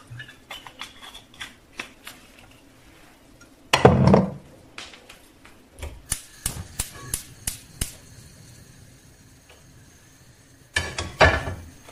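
Clicks and clunks at a gas hob: light taps early on, a heavy clunk about four seconds in, then a quick run of sharp clicks from the burner's igniter as the knob is turned. Near the end a frying pan is set down on the metal burner grate with a clatter.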